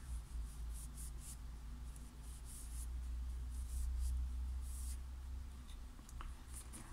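Polishing cloth rubbing along a knife blade: faint, irregular swishing strokes over a low rumble.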